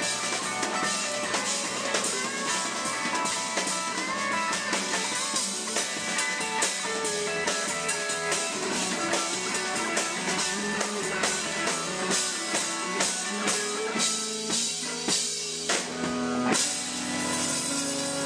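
Live band music: a drum kit and electric bass playing together with other pitched instruments. Near the end the drums play a short run of sharp strikes into a loud hit, and the band holds a chord.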